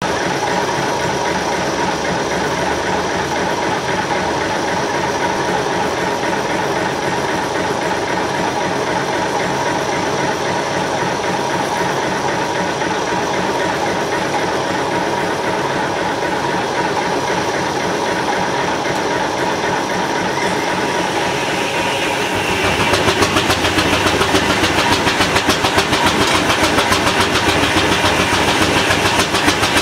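Steam-powered sawmill machinery running steadily. About 22 seconds in it grows louder and takes on a fast, regular beat.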